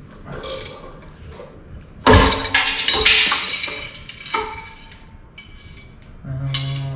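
A sudden loud crack about two seconds in, followed by a second or so of clinking and rattling: an air compressor's motor pulley breaking under a pulley puller.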